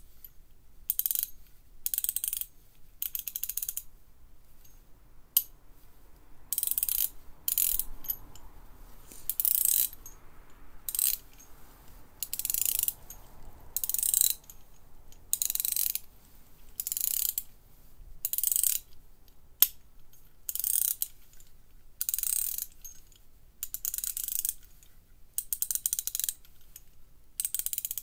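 Proxxon 3/8-inch (9.5 mm) square-drive ratchet with a 43-tooth gear, swung back and forth by hand so its pawl clicks over the teeth in short, fast runs of high-pitched clicks, about one run every second. Two single sharp clicks stand apart from the runs, one about a third of the way in and one about two-thirds of the way in.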